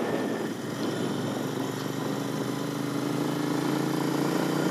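Royal Enfield Interceptor 650's parallel-twin engine running under way, its pitch rising steadily from about a second in as the bike gathers speed, with wind and road noise over the helmet-mounted microphone.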